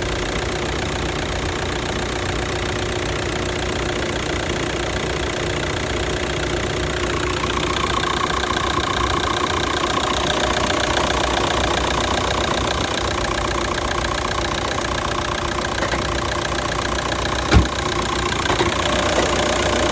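2.0-litre diesel engine of a VW Touran with a six-speed DSG idling steadily, its tone changing about seven seconds in. Near the end a single short knock stands out, the dual-mass flywheel knock that comes and goes, taken as a sign of worn DSG clutches.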